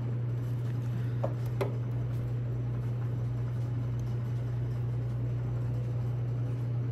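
A steady low hum with no change in pitch or level, and a couple of faint brief sounds about a second and a half in.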